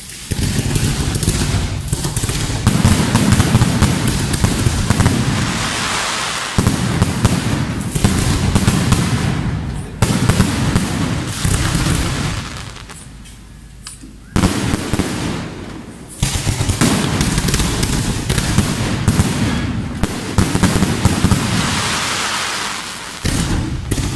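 Aerial fireworks display: dense crackling and popping of bursting shells in waves, with short lulls about halfway through and near the end.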